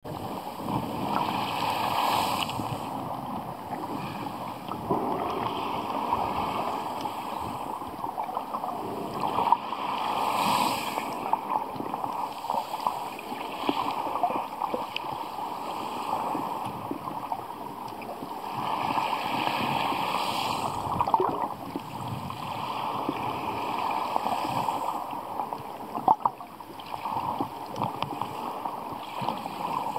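Sea surge over a pebble seabed heard underwater: a muffled rushing hiss that swells and fades every several seconds, with scattered small clicks and ticks of pebbles and grit.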